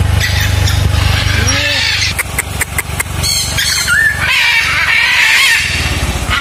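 Caged parrots squawking: several harsh, wavering calls a few seconds in. Before them there is a low rumble and a few sharp clicks.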